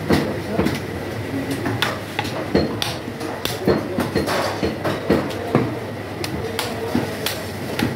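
Heavy butcher's cleaver chopping a mutton leg on a round wooden chopping block: a run of sharp, irregular chops, about one or two a second.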